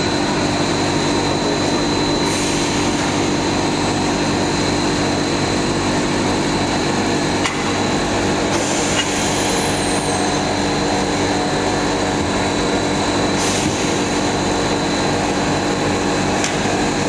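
ABS filament extrusion line running steadily: a dense machine hum from its motors with a constant high whine over it, and a few faint clicks.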